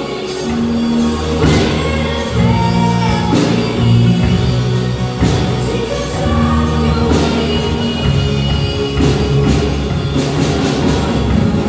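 Live worship band playing a song: drum kit, electric guitars and keyboard with singers singing the melody over a steady beat.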